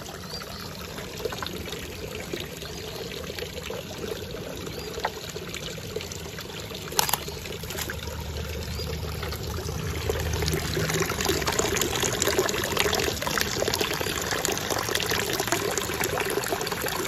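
Steady pouring and trickling of a garden pond's spitter fountain stream splashing into the pond water, louder in the second half. A single sharp knock about seven seconds in.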